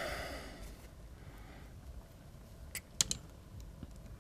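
A few faint, sharp clicks about three seconds in, from small pliers and fine wire being handled.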